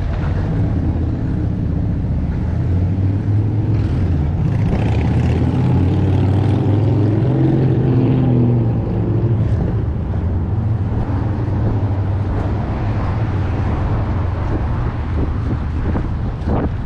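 City street traffic with a vehicle engine running close by, loudest about five to nine seconds in, over wind rumble on the microphone.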